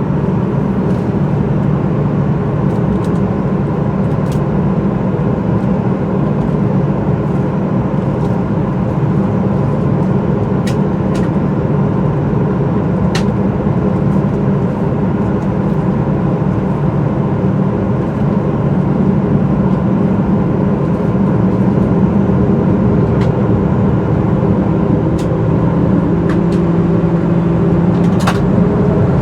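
Cabin noise inside a Boeing 737-800 with its CFM56 engines running as the jet rolls on the ground: a steady hum and rumble that grows a little louder in the second half, with a few faint clicks.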